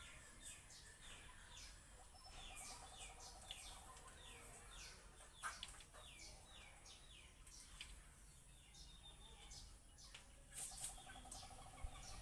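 Faint bird calls: a run of short chirps, each sliding quickly down in pitch, about one or two a second. A lower, rapid rattling trill comes in twice, about two seconds in and again near the end.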